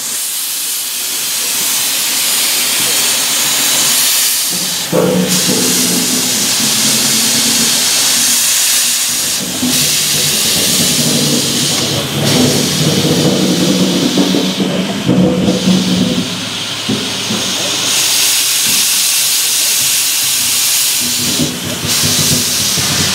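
Two-foot-gauge Forney tank locomotive WW&F No. 9 hissing steam steadily while standing on a turntable. About five seconds in, a wavering lower-pitched tone joins the hiss and keeps coming and going, and the hiss briefly drops a few times.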